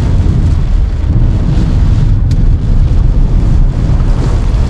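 Car driving through deep standing water in heavy rain, spray and rain lashing the car: a loud, steady rushing with a deep rumble underneath. A single short click comes about halfway through.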